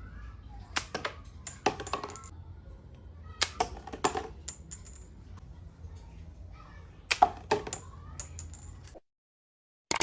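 Sharp clicks and taps from a handmade paper toy pistol being handled and worked, in about five short clusters of two or three. The sound cuts off abruptly near the end.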